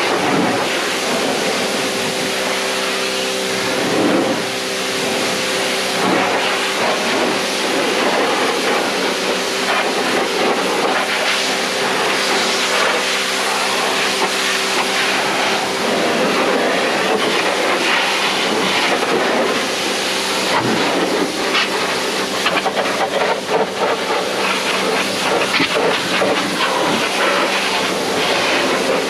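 Pressure washer running steadily: the water jet hissing and spattering against the car's door and body, over a constant machine hum.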